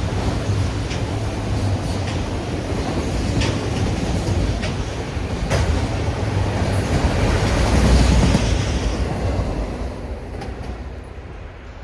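Freight train cars rolling past: a steady rumble of wheels on rail with scattered clicks over rail joints. It is loudest about eight seconds in, then fades as the train draws away.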